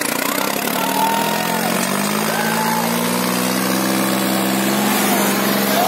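Tractor diesel engines running under heavy load as two tractors pull against each other in a tug-of-war. The engine note climbs a little over the first couple of seconds, then holds steady.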